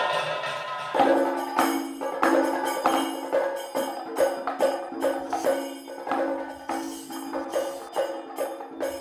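Background music: a fading sung line gives way, about a second in, to a steady percussion rhythm of sharp strokes, about two a second, over a low held tone.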